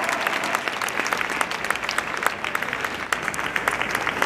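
Stadium crowd applauding: a dense patter of many scattered handclaps, easing off slightly toward the end.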